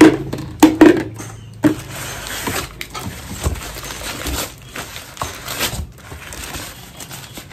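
Brown paper bag crinkling and rustling as it is opened and rummaged by hand, after a few sharp knocks in the first two seconds.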